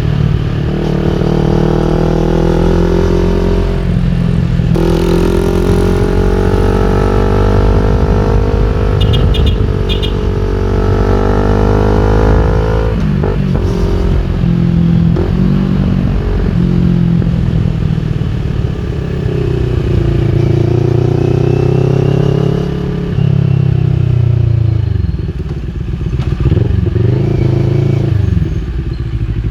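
CFMOTO NK400 motorcycle engine running through an Akrapovic full exhaust system under riding load. Its pitch climbs as it revs through the gears, drops sharply at a shift about five seconds in, and climbs again. It falls away at about thirteen seconds, then rises and eases off repeatedly.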